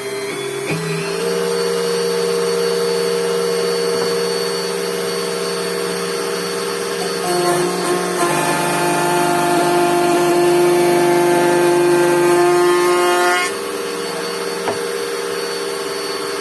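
Electric router fitted with a Sekira 08-126-400 panel-raising bit, running and cutting a profile into MDF. It makes a steady machine whine whose pitch shifts a few times as the load changes, and it is a little louder for a stretch in the middle.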